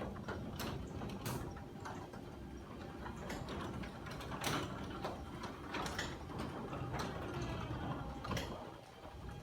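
Sommer Evo+ 2060 garage door opener running, driving a sectional garage door along its track: a steady mechanical whir with scattered clicks and rattles, dropping in level briefly near the end.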